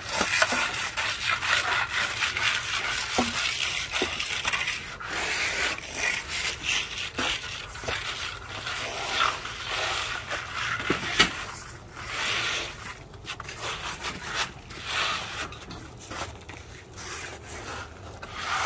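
Steel trowel scraping acrylic fine-finish stucco across a wall in repeated strokes, with a few sharp clicks in between.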